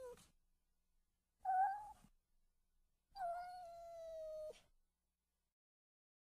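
Cat meowing three times, faintly: a short call right at the start, another about a second and a half in, and a longer, slightly falling meow about three seconds in that cuts off abruptly.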